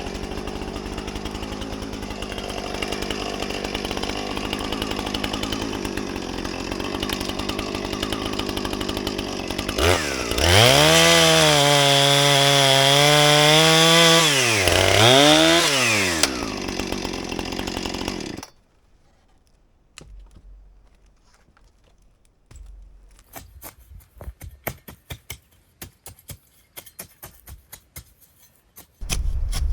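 Gas chainsaw running steadily, then revved up hard to a high pitch, with a second short rev, before dropping back. It cuts off abruptly about two-thirds of the way in, followed by faint scattered clicks and knocks.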